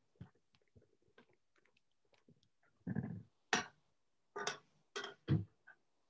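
Kitchen handling noises: a few short knocks and clatters in the second half, some with a dull low thud, with faint ticks before them.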